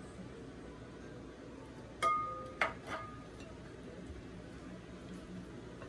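A spoon clinking against the mixing bowl three times in quick succession about two seconds in, each strike leaving a short ringing tone, while the banana cake batter is being stirred.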